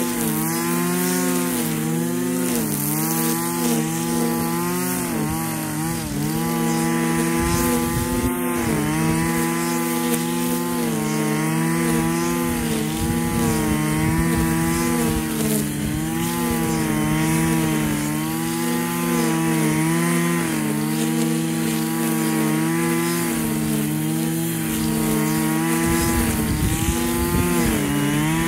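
Husqvarna 545RX two-stroke brushcutter running near full throttle while cutting grass, its engine pitch dipping and recovering every second or so as it works through the grass.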